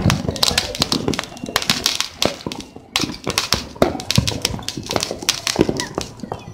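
Firecrackers and fireworks going off all over a city at once: a dense, irregular string of sharp pops and bangs, several a second, with no let-up.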